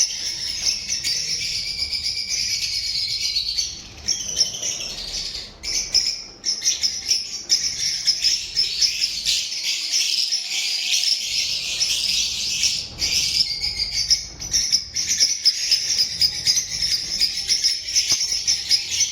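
A flock of lovebirds chattering: a dense, continuous mass of high-pitched chirps and squeaks, dipping briefly about four and six seconds in.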